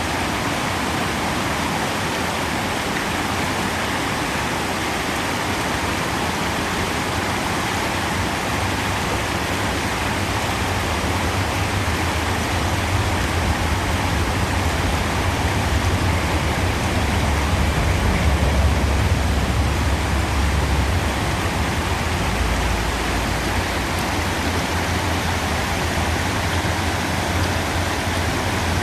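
River water flowing in a steady rush. A low rumble joins about a third of the way in, grows loudest a little past the middle, then eases but stays under the water sound.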